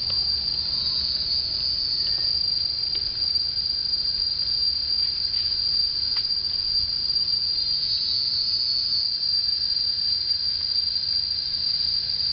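Steady shrill insect chorus, one unbroken high-pitched tone, over a low background rumble.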